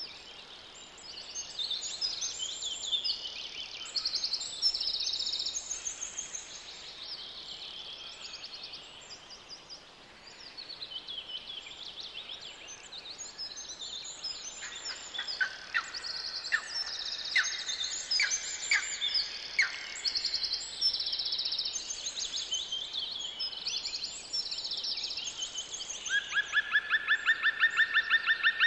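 A chorus of small songbirds chirping and singing, with many short high calls overlapping. Near the end a loud, fast repeated trill comes in.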